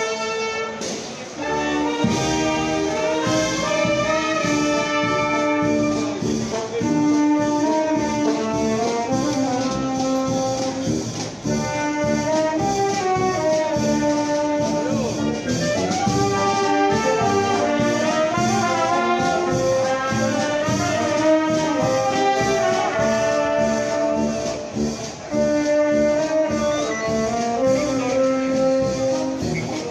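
Brass band playing: trumpets, trombones and a tuba over a steady drum beat, the full band coming in strongly about two seconds in.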